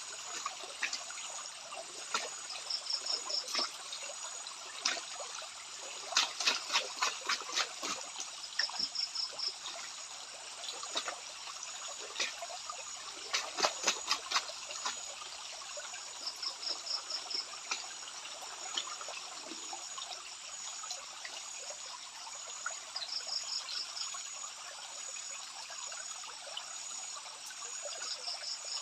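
Stream water trickling and sloshing as a gold pan is swirled and washed, with clusters of quick splashes every few seconds. A short pulsed high chirp recurs about every six seconds over a faint steady high insect drone.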